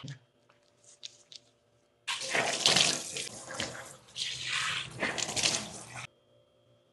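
Tap water running from a swivel faucet into a stainless steel sink and splashing into cupped hands as a face is rinsed. The water starts about two seconds in, after a few faint ticks, and cuts off suddenly about a second before the end.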